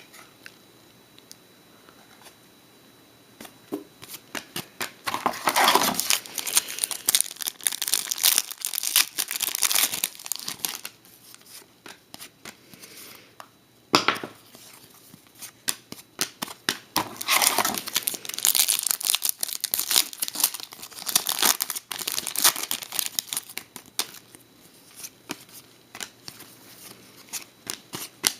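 Hockey card packs being torn open: foil wrappers tearing and crinkling in bursts, with a lull partway through and a sharp rip about halfway in.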